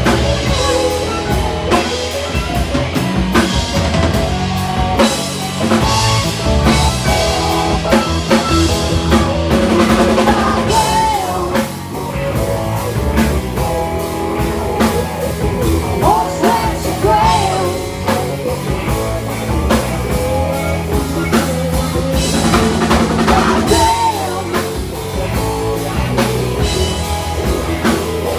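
Live rock band playing loud and steady, with electric guitars over a drum kit and a wavering sung or lead melody line coming in several times.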